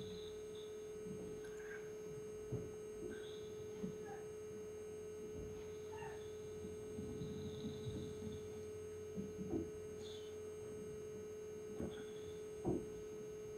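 A steady faint hum at one pitch, with a few faint clicks and small chirps scattered through it.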